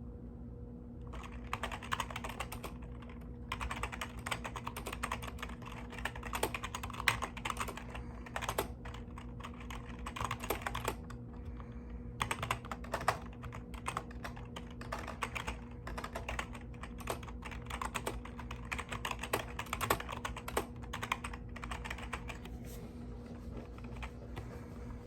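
Typing fast on a mechanical keyboard: a dense, irregular stream of key clacks that starts about a second in, with two short pauses.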